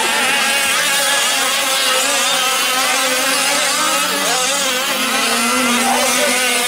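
Several 1/5-scale gas RC trucks' small two-stroke engines buzzing and revving together, their pitches overlapping and rising and falling as the trucks race and corner.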